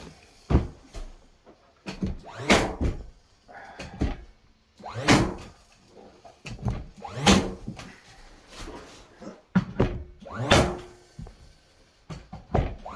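Nails being driven to face-nail cedar trim boards onto a plywood door panel: a series of sharp knocks about every two to three seconds, with lighter taps in between.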